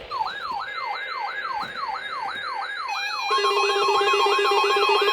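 NOAA weather radio receivers sounding their alert siren for the weekly test: an electronic tone sweeping up and down about three times a second. A little over three seconds in, steady alarm tones join it and it gets louder.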